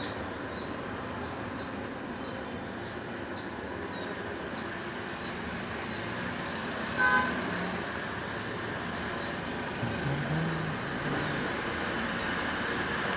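Steady outdoor traffic noise, with a brief horn toot about seven seconds in. Short high chirps repeat a few times a second over the first few seconds.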